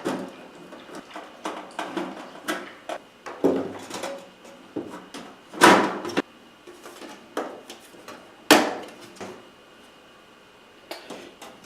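Knocks and clatter of a desktop computer case being handled and opened, with two louder bangs about six and eight and a half seconds in.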